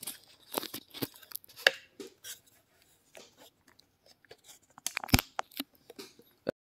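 Handling noise of a USB-C wireless mic receiver being plugged into a phone: scattered clicks, taps and rubbing, with a sharp click about five seconds in. The sound cuts off completely near the end.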